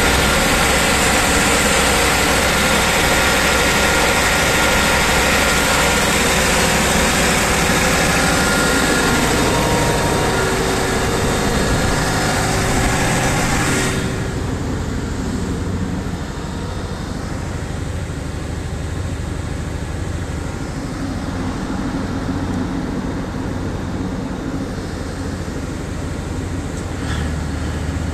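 Large twin-turbocharged diesel generator engine running steadily, loud and full, with a thin high whine over it. About halfway through, the sound suddenly turns duller and lower as it is heard from outside its shipping-container enclosure.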